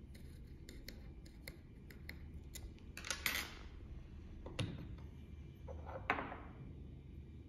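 Metal parts of a bassoon tip profiling machine being handled: light clicks of a hex key in the template screws, then a metallic scrape about three seconds in, a knock a second or so later and a clink near six seconds as the metal template is lifted off the base plate and set down.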